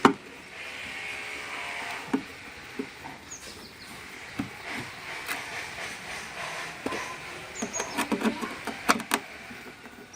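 Irregular clicks, taps and knocks over a steady hiss, more of them close together near the end.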